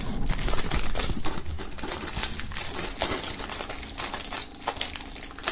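Plastic shrink-wrap film being peeled off a CD package, crinkling and crackling in quick irregular clicks.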